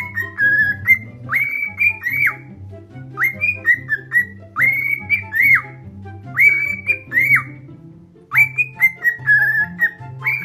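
Cockatiel whistling a short phrase over and over: clear notes that rise, hold and drop off, some phrases with a warbling stretch, repeating every second or two with a brief pause near the end. Background music with a steady bass line plays underneath.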